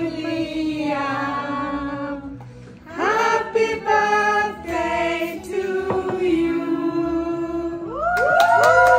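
A group of adults and children singing a birthday song together, holding long notes. There is a short break a little under three seconds in, and the voices rise and grow louder near the end.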